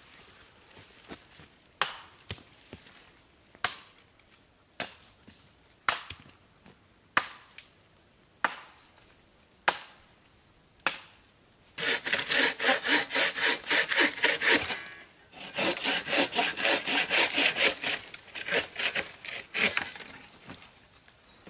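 Wood being chopped with sharp single blows, about one every second, nine in all. Then a hand saw cuts through wood in rapid back-and-forth strokes for about three seconds, stops briefly, and saws again for about four more seconds.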